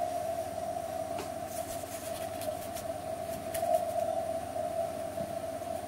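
A 10-metre amateur-radio signal from an Icom HF transceiver's speaker: a steady tone that swells and fades over receiver hiss, with a few faint clicks.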